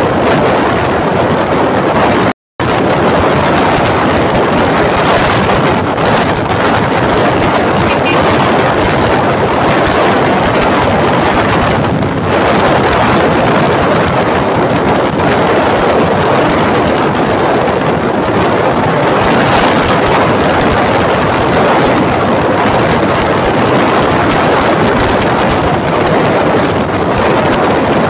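Loud, steady wind rush buffeting the microphone of a camera held out on a moving motorcycle, mixed with road and engine noise. The sound cuts out completely for a split second about two and a half seconds in.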